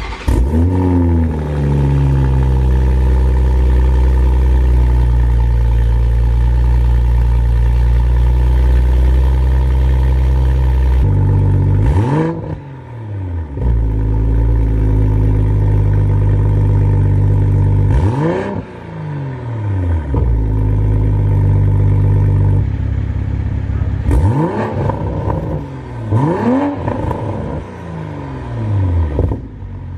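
A90 Toyota GR Supra cold-starting through an Extreme Online Store catback exhaust and catless downpipe. The engine fires at once and holds a steady fast cold idle, then takes several quick throttle blips in the second half, each rising and falling in pitch, dropping back to idle between them.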